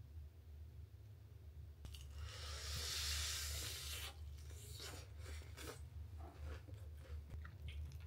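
Biting into the crispy battered coating of a fried chicken drumstick: a loud crunch about two seconds in, followed by crackly chewing of the crust.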